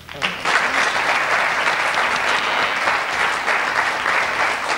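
Studio audience applauding, breaking out suddenly and holding steady.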